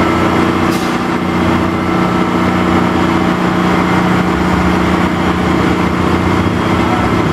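Crane engine running steadily while it holds a heavy load aloft, a constant hum with several steady tones.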